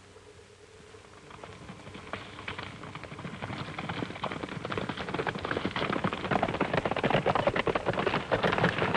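Hoofbeats of several galloping horses on dry ground, a rapid, irregular patter that starts faint and grows steadily louder as the riders approach.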